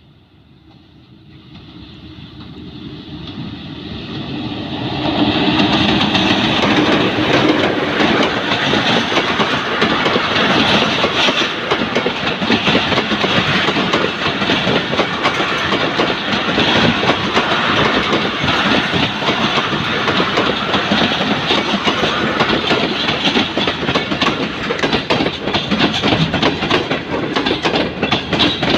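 Pakistan Railways passenger train led by a PHA-20 diesel locomotive drawing near, growing louder over the first five seconds as it comes past. A long rake of passenger coaches then rolls by close to the track, with a steady clickety-clack of wheels over the rail joints.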